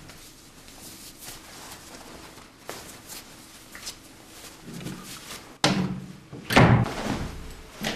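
A few faint knocks, then a sharp slam about five and a half seconds in, followed by a louder, heavier thud a second later.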